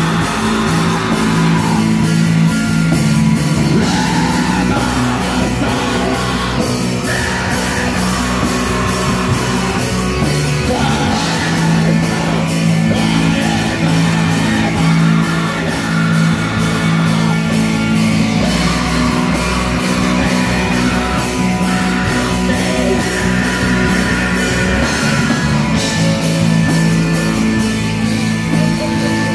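Heavy metal band playing live: distorted electric guitars with a vocalist's harsh, shouted singing over them, loud and unbroken.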